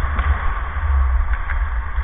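Steady low rumble with an even hiss over it, typical of air buffeting a body-worn camera's microphone while skating during ice hockey play, with a few faint clicks.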